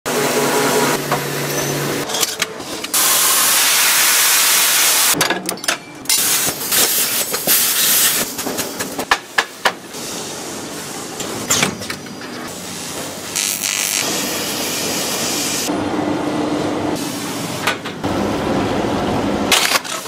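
A run of short, abruptly cut factory machine sounds from air-conditioning condenser production. A steady hum with low tones comes first, then long stretches of hissing, with scattered sharp clanks and taps in between.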